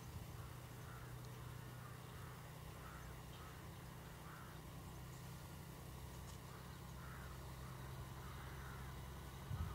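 Diesel engine of a TGM23V48 shunting locomotive running at a steady low drone, while birds call over and over. There is a brief low thump near the end.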